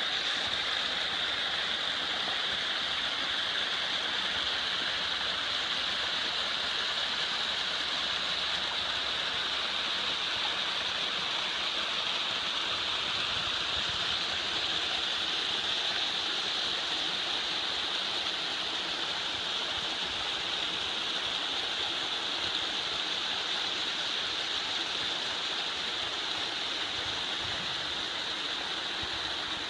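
Small rocky woodland stream splashing down little cascades between boulders: a steady rush of running water.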